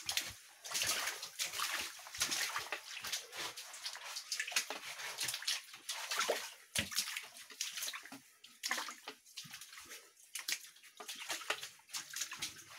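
Footsteps wading through shallow water, an irregular run of splashes and sloshes with each step.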